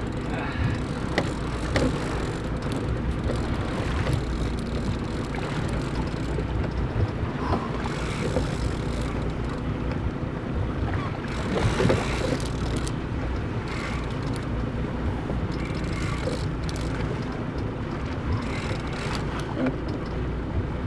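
Boat engine running steadily at a low rumble, with wind buffeting the microphone and water noise around the hull.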